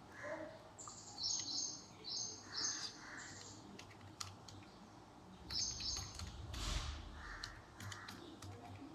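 Faint taps of a calculator's keys being pressed, a few at a time with short pauses between.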